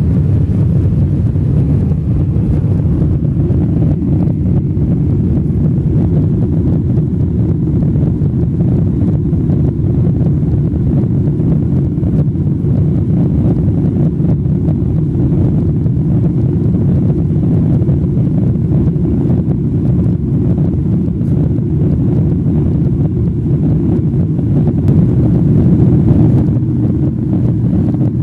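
Steady cabin noise of a Boeing 777-300 airliner in flight, heard from a window seat: a low, even rumble and rush of engines and airflow as the aircraft climbs through cloud.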